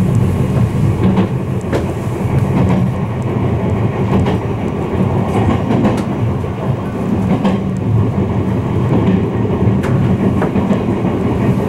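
Izukyu 2100 series electric train running at speed, heard from inside the car: a steady rumble of wheels on rails with occasional clicks from rail joints.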